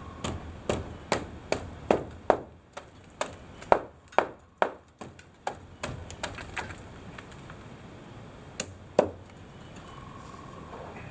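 A run of sharp knocks on timber, about two or three a second, pausing briefly, then two more strikes a little later.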